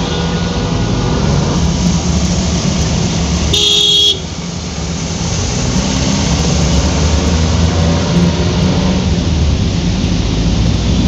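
Steady car and traffic rumble on wet roads, heard from inside a moving car, with a short beep about four seconds in.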